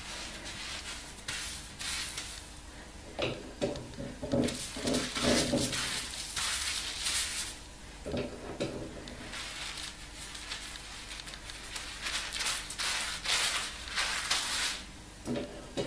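Hands squeezing and rubbing shampoo lather through twisted afro hair at the scalp: an uneven, wet crackling rustle that comes and goes in bursts as the fingers work.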